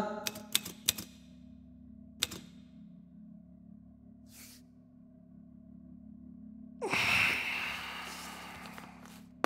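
A few typewriter key clicks in the first second and one more near two seconds in, over a low steady hum. About seven seconds in comes a rustling hiss lasting about two seconds that fades away.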